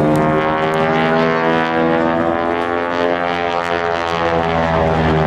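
Aircraft engines droning loudly as a plane passes at an air show, a stack of steady tones slowly shifting in pitch.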